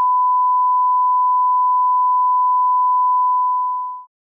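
Steady pure test tone, the line-up reference tone that precedes a broadcast commercial spot, cutting off suddenly near the end.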